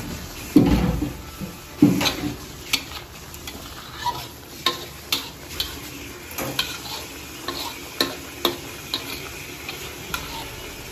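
Metal ladle stirring chicken and button mushrooms in a sauce bubbling in a wok, clinking and scraping against the pan about once or twice a second over a steady sizzle. Two heavier knocks come in the first two seconds.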